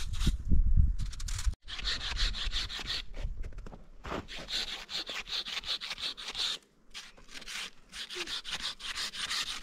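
Fast, repeated scraping strokes on a hard surface, coming in three runs with short pauses between them. In the first second and a half they are mixed with a low rumble that cuts off abruptly.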